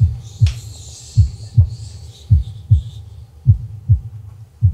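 Heartbeat sound effect: low double thumps in a steady lub-dub rhythm, about one pair a second, building suspense before a reveal.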